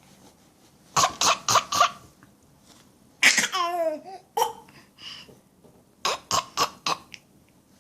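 A small child's fake coughing mixed with giggles: a quick run of about four short breathy coughs about a second in, a voiced laughing squeal in the middle, then another run of about five short coughs near the end.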